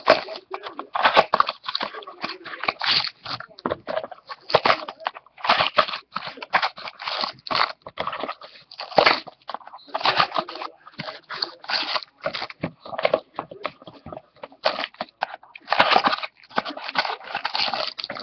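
Foil trading-card pack wrappers crinkling as they are torn open and handled, in quick irregular bursts.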